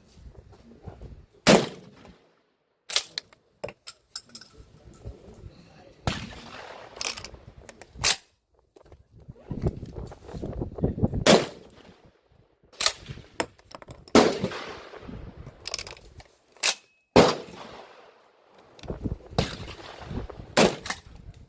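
Gunshots, about a dozen single shots fired at irregular intervals roughly one to two seconds apart, some louder than others, several with a short ringing tail.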